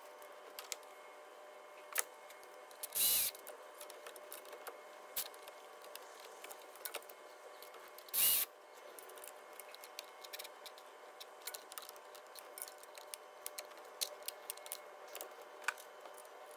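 Cordless 12-volt ratchet whirring in two short bursts, about three seconds and eight seconds in, running in the bolts of a new EGR valve. Around the bursts come small metallic clicks and knocks from the tool and parts being handled.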